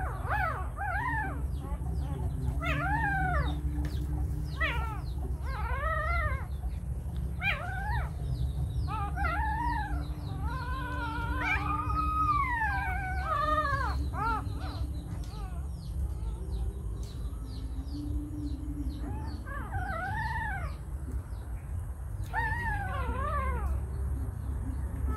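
Puppies whimpering and whining: a string of short high cries that rise and fall in pitch, with one longer wavering whine about halfway through, over a steady low rumble.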